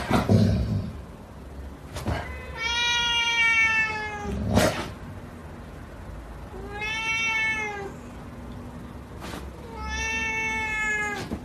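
Orange tabby kitten meowing: three long, drawn-out meows a few seconds apart, each rising a little in pitch and then falling. A sharp click comes just after the first meow, and a rustle at the start.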